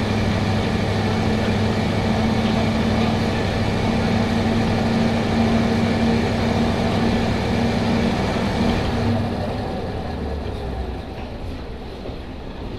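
Kanto Railway KiHa 005 railcar's eight-cylinder DMH17C diesel engine running steadily under power. About nine seconds in the engine note falls away and the sound drops, as the power is shut off and the railcar begins to coast.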